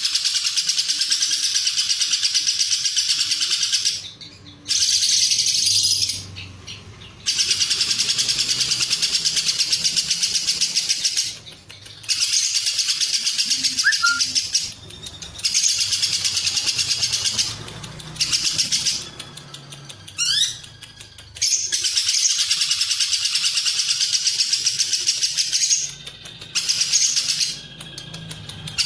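Lovebird singing its ngekek song: long runs of very rapid, high-pitched chattering trills lasting several seconds each, broken by brief pauses.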